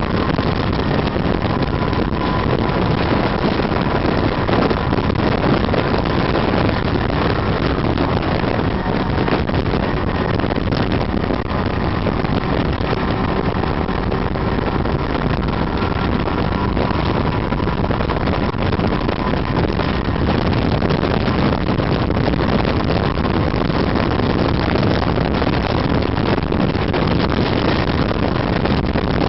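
Snowmobile engine running at a steady cruising speed, heard from the rider's seat, with wind rushing over the microphone. The sound holds even throughout with no change in speed.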